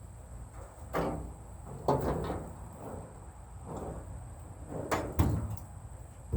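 A few sharp knocks and clatters: one about a second in, a short cluster about two seconds in, and a pair about five seconds in, over a low steady hum.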